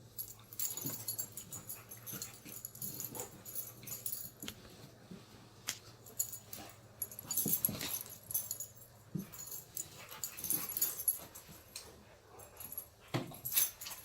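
Dogs scuffling and huffing, heard as short, irregular, breathy bursts.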